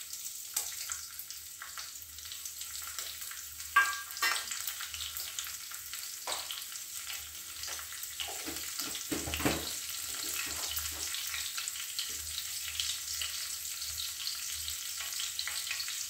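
Cumin seeds and a green chilli sizzling in hot oil in a pan, with a steady hiss and scattered crackling pops; a sharper pop comes about four seconds in. This is the tempering (phoran) stage, the whole spices frying in oil.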